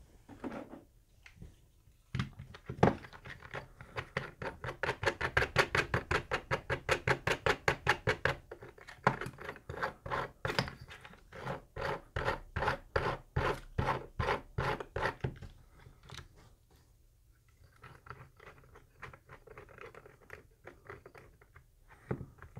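Green 3D-printed plastic vise being handled and tightened around a small receiver board: a long run of quick, evenly spaced plastic clicks, about six a second, from about two seconds in until about fifteen seconds, then fainter rustling and scraping.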